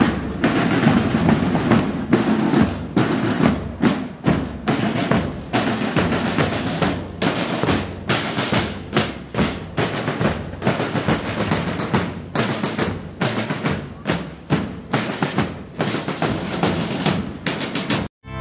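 A street drum group playing large bass drums and snare drums together in a fast, dense beat.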